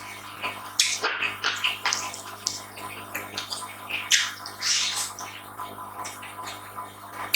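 Close-miked eating sounds: irregular wet chewing and mouth smacks, over a faint steady hum.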